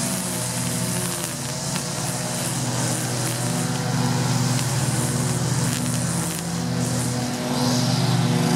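Engine running steadily, a low even hum with a fainter wavering higher tone above it.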